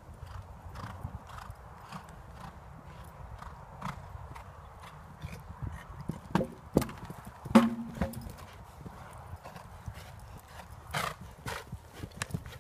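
Horse cantering on a sand arena surface, its hoofbeats coming in an even rhythm. Louder hoof thuds come as it takes off and lands over a jump a little past halfway, with one loud thump and a brief low tone on landing. The beats grow loud again near the end as the horse passes close.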